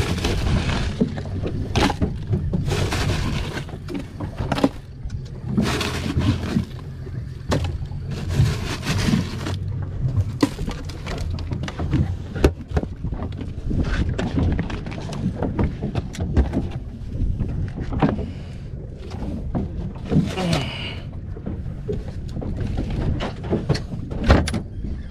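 Crushed ice rattling and crunching as it is handled over fish in a plastic cooler, with knocks and bumps from the fish and the cooler, over a steady low rumble.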